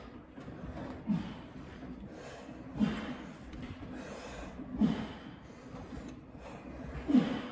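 A person breathing hard while exercising on a gym machine, with four loud exhales about two seconds apart.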